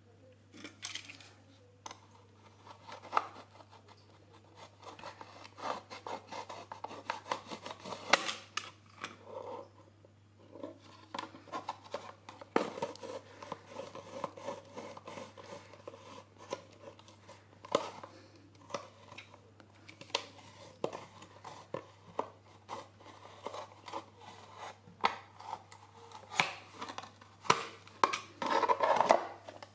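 A small plastic tub being cut to size by hand: irregular snips, clicks and scraping of the thin plastic, with short pauses between cuts and a denser run of cutting near the end.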